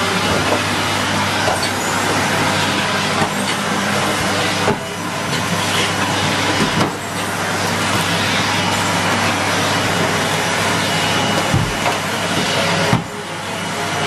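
A Henry cylinder vacuum cleaner running on carpet: a steady hiss of suction over a low motor hum, dipping briefly a few times as the floor tool is moved.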